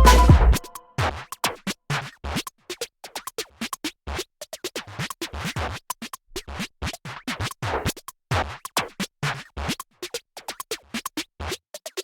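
Background music: a melodic passage cuts off about half a second in, giving way to a sparse electronic beat of short clicks and hits.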